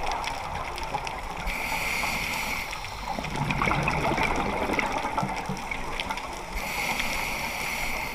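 Scuba regulator breathing heard underwater: a hiss on each inhalation, about a second and a half in and again near the end, with gurgling exhaled bubbles between them.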